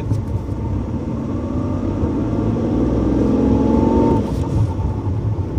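Hyundai Eon engine and road noise heard from inside the cabin, accelerating in second gear: the pitch climbs for a couple of seconds, then drops about four seconds in. There is no rattle or squeak from the accelerator pedal, whose cable has just been greased.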